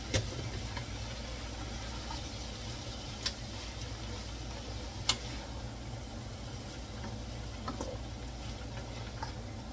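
Wooden spoon stirring ground beef with onion and garlic in a skillet, with a few sharp knocks of the spoon against the pan over a steady low hum.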